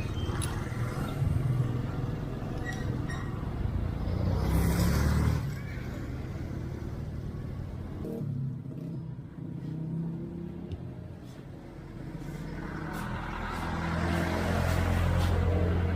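Motor vehicle engines rumbling in street traffic. They swell louder about a third of the way in and again near the end, as vehicles pass or rev.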